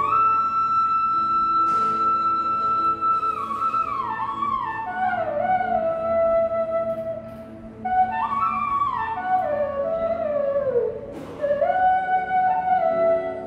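Instrumental music: a slow solo melody of long held notes and stepwise falling phrases over a steady low drone.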